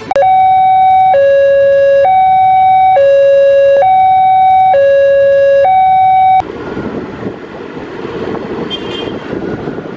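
Electronic two-tone siren, a plain hi-lo pattern alternating between a higher and a lower note about once a second, loud, for about six seconds before it cuts off suddenly. Wind buffeting on the microphone follows.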